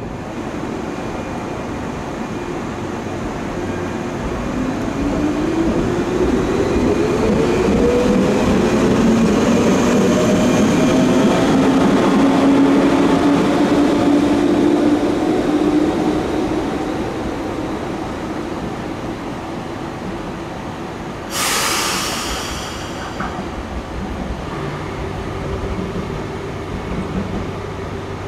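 Diesel railcar at a station platform: its engine drone rises in pitch, holds steady, then fades. About twenty seconds in comes one sharp hiss of compressed air, dying away over a second or two, around the time the doors close.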